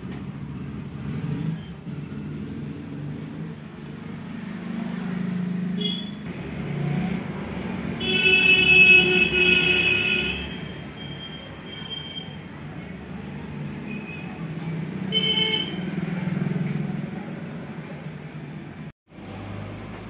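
Road traffic rumbling past, with a vehicle horn sounding for about two seconds near the middle as the loudest sound and shorter horn toots a few seconds before and after it.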